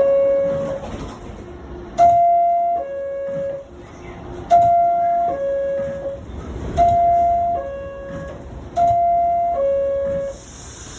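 NYC Subway R62A car's door chime: a falling two-note ding-dong, the signal that the doors are about to close. It sounds four times, roughly every two and a quarter seconds, after the last note of a chime just ending at the start.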